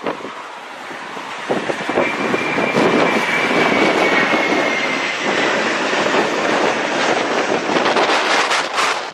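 An airplane's engines passing close by on a landing approach. A loud rush swells about a second and a half in, carrying a high whine that slides slightly down in pitch, then drops off sharply at the very end.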